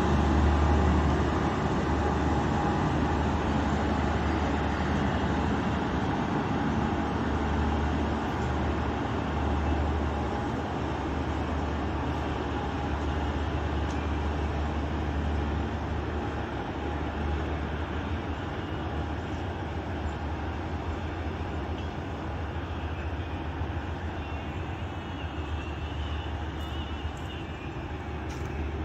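Musa Pak Express passenger train pulling away, its wheels rumbling steadily on the rails and fading gradually as the last coach recedes.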